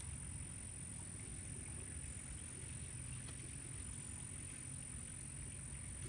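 Steady outdoor background noise: a constant low rumble with a thin, unchanging high-pitched whine above it, and no distinct events.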